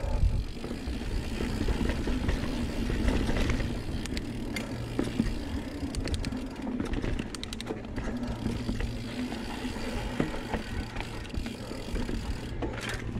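Mountain bike, a 2019 Santa Cruz Blur, riding a dirt forest singletrack on a climb: a steady rumble of tyres on the trail, with scattered clicks and rattles from the bike throughout.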